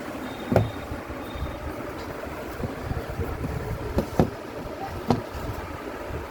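A handful of sharp knocks and taps, one about half a second in and a cluster around four to five seconds, over a steady low rumble: objects being handled during a laptop unboxing.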